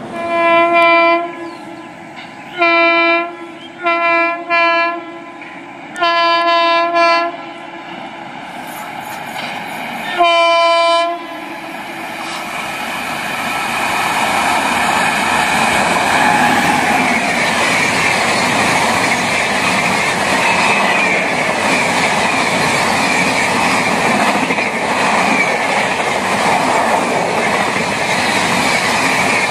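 WAP-7 electric locomotive's air horn sounding six times over about eleven seconds: a long blast, a series of shorter ones, then a longer one. The express train then comes through at speed, its wheels and coaches building to a steady loud rumble and clatter as the coaches pass.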